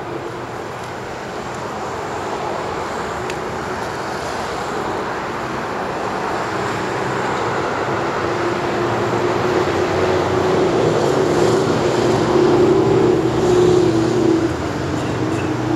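City road traffic: a steady rush of passing vehicles that builds up as a vehicle with a low engine hum comes closer, loudest about 13 to 14 seconds in, then falls away.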